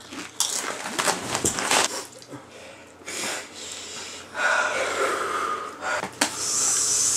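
A person breathing hard and wheezing through the mouth, the heavy breathing of someone whose mouth is burning from habanero peppers. A steady hiss starts about six seconds in.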